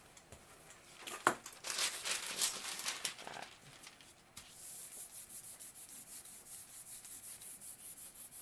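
Sheet of deli paper crinkling as it is laid over a gelli plate, with a sharp click in the handling. Then a hand rubs quickly back and forth over the paper in fast, even strokes, pressing it onto the wet acrylic paint to pull a monoprint.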